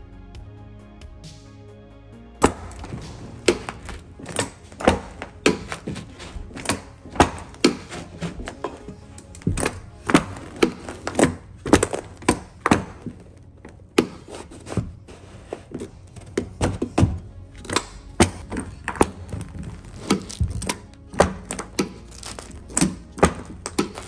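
Background music for the first couple of seconds, then repeated sharp thunks, about one or two a second and uneven, from a Kneeless carpet kicker being worked along the wall to stretch new carpet onto the tack strip while a tucking tool pushes the edge down.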